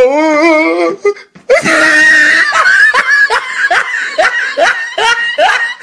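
Loud laughter: a wavering, drawn-out laugh, then after a brief pause a run of short, rising 'ha' bursts, about two or three a second.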